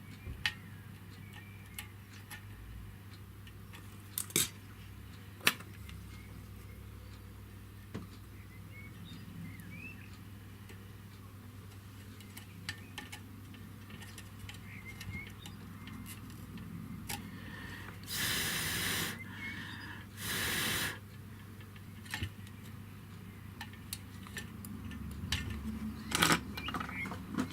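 Small hand tools clicking and tapping while the live wire of a solder pot is connected to its switch, over a steady low hum. About two-thirds of the way through come two hissing bursts, each about a second long.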